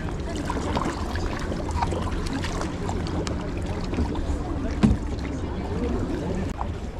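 Kayak paddle strokes: water splashing and dripping off the paddle blades, with many small irregular splashes and one sharper hit about five seconds in.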